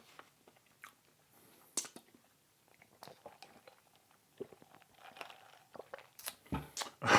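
Close-miked eating sounds: biting, crunching and wet chewing of food, in scattered short crunches with a louder burst near the end.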